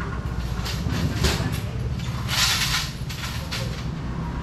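A vehicle engine idling with a steady low rumble, with two short bursts of hiss about one second and two and a half seconds in.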